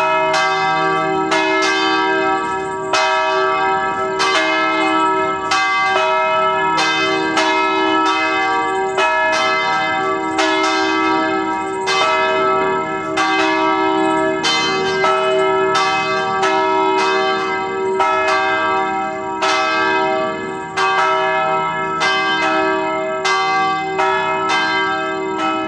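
Church bells ringing the noon hour in an unbroken run of strokes, about one and a half a second. Each stroke rings on into the next, so the tones of several bells overlap.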